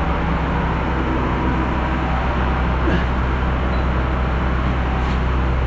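Truck engine running steadily with a low, even hum, with a couple of faint clicks about three and five seconds in.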